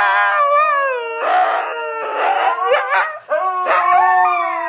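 A dog howling and whining in a run of long, drawn-out notes that mostly slide downward in pitch, with a few rougher, breathier cries between them.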